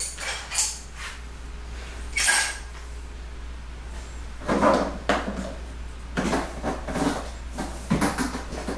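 Tools and small parts being picked up and set down on a countertop: scattered light knocks and clatters, a few at first and a busier run in the second half.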